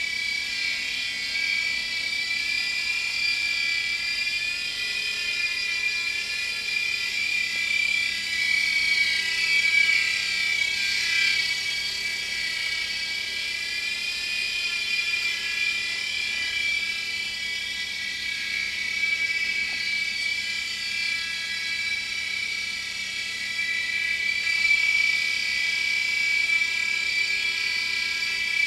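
Toy helicopter's small electric motor and rotor whirring in a steady high whine, the pitch wavering briefly about a third of the way through.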